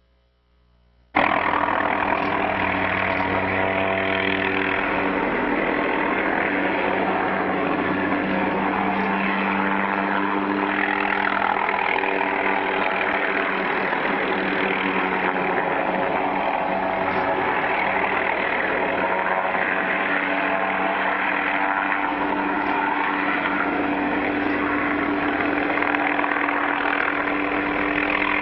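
An engine running steadily, with a dense, unbroken noise and a few steady low tones; it cuts in suddenly about a second in.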